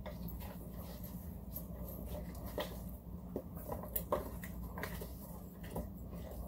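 Wooden spoon stirring a thick sugar and juice mixture in a stainless steel stockpot, with scattered light clicks and knocks as it touches the pot, over a steady low hum.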